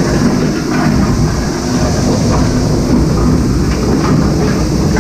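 Shredder-granulator combination running under load, its shredder rotor breaking up solid plastic purge lumps: a loud steady rumble with irregular cracking knocks as the knives hit the pieces.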